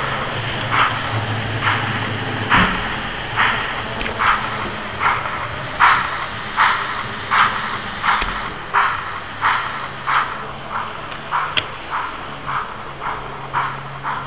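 Sound-fitted OO gauge model steam locomotive playing chuffs over a steady hiss of steam, the chuffs quickening from about one a second to over two a second after about ten seconds as the model picks up speed.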